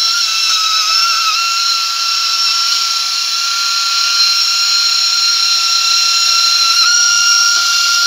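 Battery-operated 1970s Japanese tin-plate toy bus running, its small electric motor and gearing giving a steady high whine. The pitch wavers briefly about a second in.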